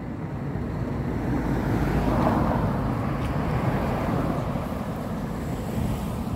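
Car passing close by on a tarmac road: tyre and engine noise swells to a peak about two seconds in, then stays up as traffic carries on.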